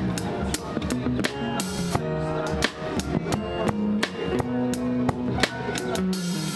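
A band playing, a drum kit keeping a steady beat under a bass guitar and other pitched instruments.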